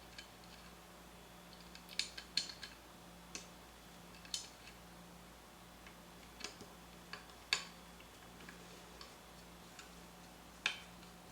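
Scattered sharp metallic clicks and taps, about one every second or two, as a screw is driven by hand into a Mazzer Mini coffee grinder's metal parts.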